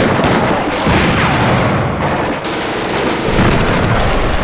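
Cartoon rapid-fire shooting effects, like machine-gun fire, as the mutant chickens fire volleys of glowing bolts. The firing is dense and continuous, with heavy booms, and turns into a fast rattle of shots near the end.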